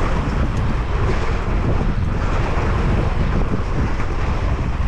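Wind rushing over a 360 action camera's microphone, mixed with the noise of a mountain bike descending a trail at speed. The noise is loud and steady throughout.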